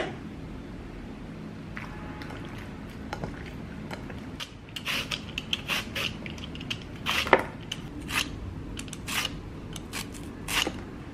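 Red cabbage being shaved with a hand-held slicer, about a dozen crisp, crunchy scraping strokes at an uneven pace, starting a little under halfway in, the loudest about two-thirds of the way through.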